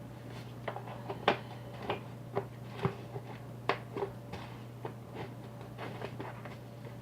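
Irregular light clicks and taps of a plastic glue bottle and container being handled while white glue is squeezed out, over a steady low hum.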